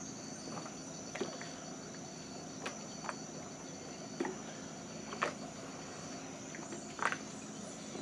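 Rainforest insects calling in a steady high-pitched drone of two constant tones, with faint irregular clicks scattered through it.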